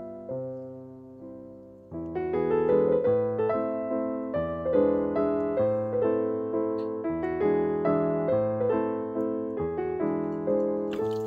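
Background piano music: single decaying notes of a slow melody, sparse for about two seconds, then fuller, with bass notes under the melody.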